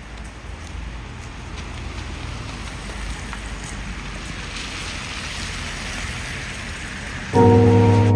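A steady hiss of outdoor street noise that grows slowly louder. About seven seconds in, background music cuts in with a loud sustained chord.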